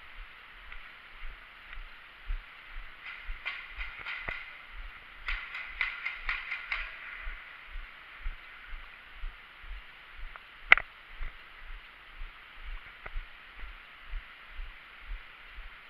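Airsoft gunfire: two quick strings of sharp shots a few seconds in, then one louder single shot later on. Under it run soft, even low thumps about twice a second.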